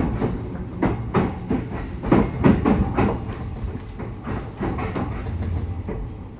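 E129 series electric train running, with a steady low rumble and irregular clattering knocks as the wheels cross rail joints on the rough Yahiko Line track.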